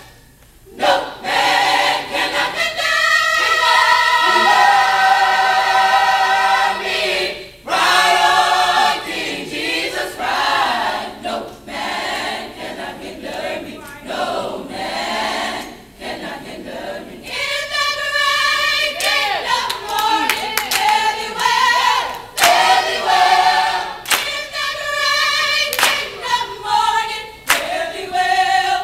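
Mixed-voice choir singing in harmony, holding long chords, with a short break about seven seconds in. In the last few seconds the singers clap along in rhythm.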